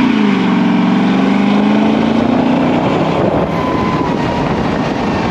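An engine revs, peaking right at the start and dropping back, then runs steadily under a loud rushing noise that fades near the end.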